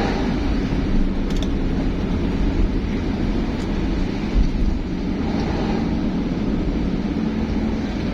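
Steady engine and road noise of a moving vehicle on the road, a continuous low rumble with no horn sounding.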